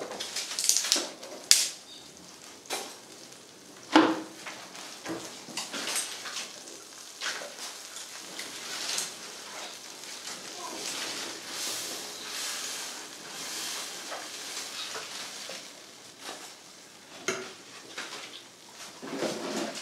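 Cumin and red chillies sizzling in oil in a steel kadhai over a wood fire, a tadka for kadhi being cooked. Several sharp cracks and knocks come through the sizzle: firewood sticks being broken, and a steel ladle stirring against the pan.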